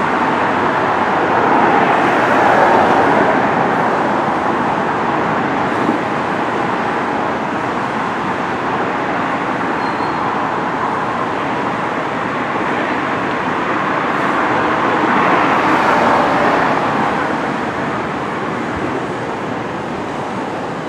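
Road traffic: a steady wash of passing vehicles that swells twice, as vehicles go by, about two seconds in and again about fifteen seconds in.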